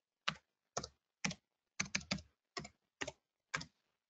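Computer keyboard keys pressed one at a time, about nine keystrokes at an uneven pace of roughly two a second, as a serial number is typed in by hand.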